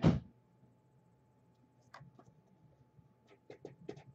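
A trading card box knocked onto a tabletop with one short thump. A quiet stretch follows, then near the end comes a run of light clicks and scrapes as the box and cards are handled.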